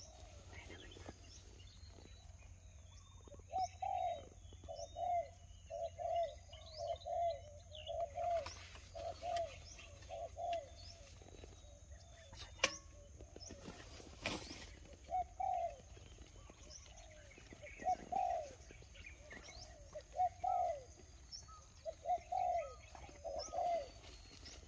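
Wild dove cooing: runs of short, low coos repeated once or twice a second, with pauses between runs. A single sharp click comes about halfway through.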